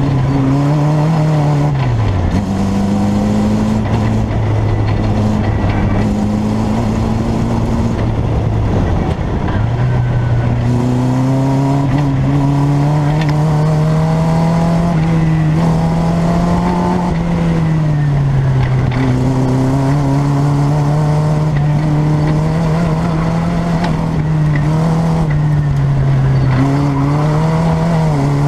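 1962 Triumph TR4's four-cylinder engine driven hard on an autocross course, heard from the open cockpit. The revs climb and fall again and again as the driver accelerates, lifts and shifts, with a sharp drop about two seconds in and a short dip near nine seconds.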